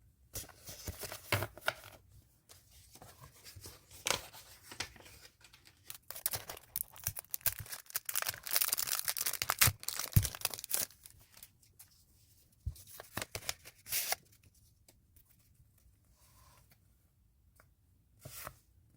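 Packaging being torn open and rustled by hand, in bursts that are densest for a few seconds around the middle, with a sharp click partway through, then a few scattered rustles.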